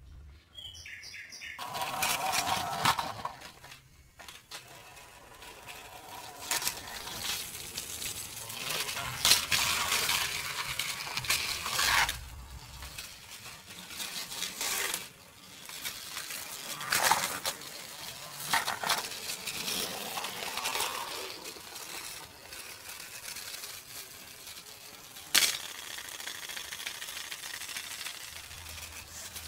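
Thomas and Friends Crash and Repair Bash toy engine on plastic track, with continuous plastic clattering and several sharp knocks scattered through as it crashes into break-apart scenery and the pieces fall. The loudest knock comes about nine seconds in.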